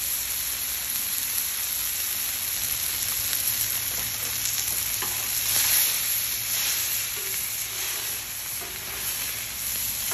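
Steak searing in a hot pan with a steady sizzle, which swells briefly a little past the middle.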